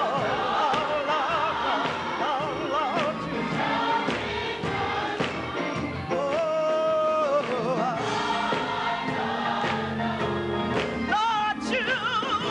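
Gospel music with a choir and solo voices singing, the pitch of the voices wavering on held notes.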